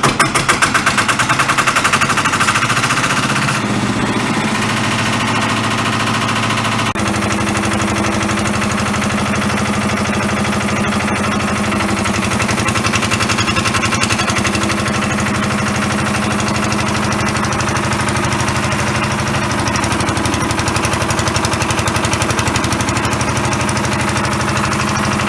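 Lister SR1 single-cylinder air-cooled diesel engine of a Smalley MK5 mini excavator running steadily just after firing up. Its note changes about four seconds in and again about seven seconds in, then holds an even beat.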